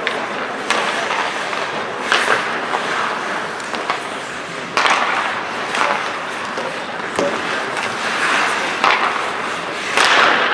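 Ice hockey skates scraping and carving on the ice, with sharp clacks of sticks and puck striking several times.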